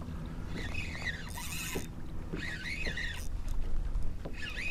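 Spinning reel worked against a hooked redfish: the handle is cranked and the drag gives out line in several short, wavering buzzes as the fish pulls. Under it is a low rumble of wind and water on the microphone.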